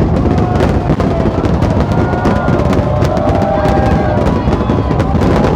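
Fireworks going off in a rapid string of bangs and crackles over loud music, with a low rumble throughout.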